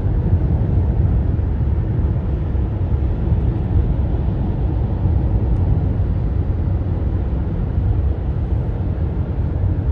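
Steady low rumble of a car travelling at freeway speed: tyre and road noise.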